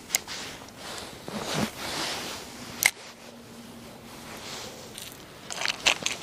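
Fishing gear being handled: sharp clicks and rustling as a spinning rod and reel are worked, with a quick cluster of plastic clicks near the end as a clear plastic tackle box is snapped open.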